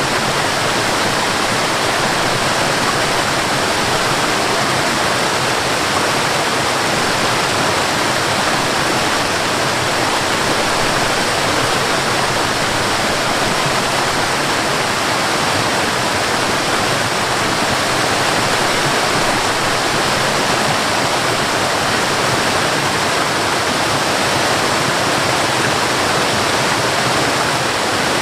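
Waterfall and river water rushing, a loud steady roar with no breaks.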